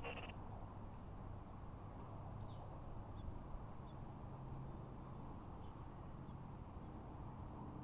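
Quiet outdoor background: a steady low rumble and hum, with a few faint, brief bird chirps scattered through it.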